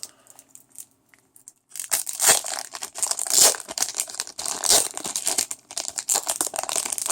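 Crinkly foil card-pack wrapper being torn open and crumpled by hand in a run of irregular rustling tears, starting about two seconds in after a near-silent pause.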